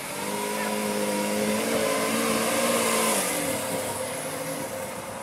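Lamborghini Aventador's V12 engine as the car pulls away at low speed. The note builds for about three seconds, then drops in pitch and fades as the car moves off.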